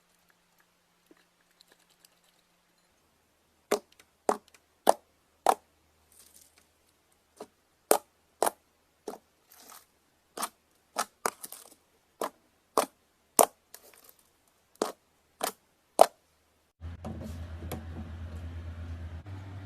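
A quick series of sharp, loud pops, about eighteen over twelve seconds, as slime-filled balloons are burst one after another. A steady low hum starts near the end.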